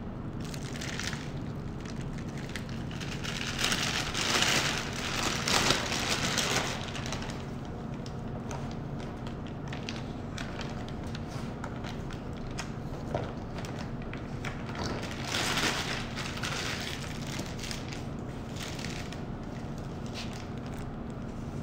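Plastic piping bag crinkling as it is handled and squeezed, in a few bursts about four to seven seconds in and again around fifteen seconds, over a steady low hum.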